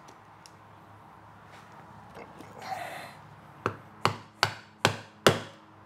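A mallet striking a rivet setter five times in quick succession, about two and a half blows a second, setting a rivet through the leather suspender straps.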